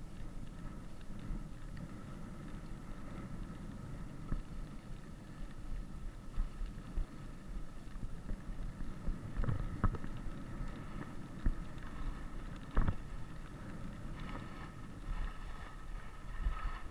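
Skis sliding and carving down a groomed snow slope: a steady low rumble and scrape of the skis on the snow, with wind on the microphone. A couple of sharp knocks come about ten and thirteen seconds in.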